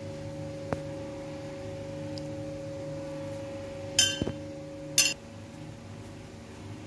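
Two sharp metallic clinks about a second apart, over a steady hum that cuts off just after the second clink.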